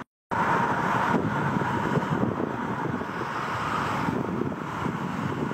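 Strong wind buffeting the microphone: a steady, flickering rush of noise, after a short dead-silent gap at the very start.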